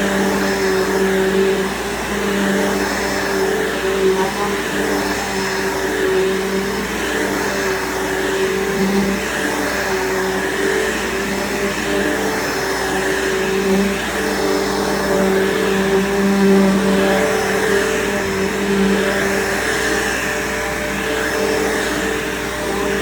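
Bissell PowerForce bagged upright vacuum cleaner running steadily while vacuuming, its motor hum wavering slightly in pitch.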